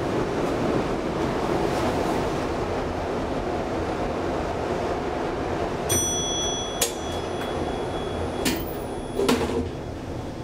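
Steady rumble of metro-station machinery. About six seconds in a high electronic tone sounds, and three sharp clunks follow over the next few seconds as the 1977 KONE inclined elevator's doors close.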